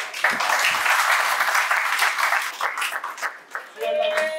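Audience clapping and applauding, starting suddenly and thinning out after about three and a half seconds, when raised voices begin a loud shout.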